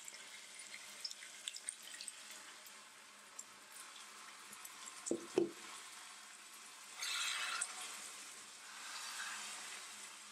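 Boiling water poured into a hot pan of beef shank in masala, which sizzles and crackles while a silicone spatula stirs it. Two brief knocks about five seconds in, and a louder spell of sizzling around seven seconds.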